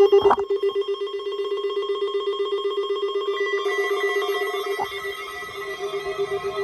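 A steady ringing tone, rapidly pulsing like a bell, with a short click near the start and another about three-quarters of the way through; further steady higher tones join about halfway.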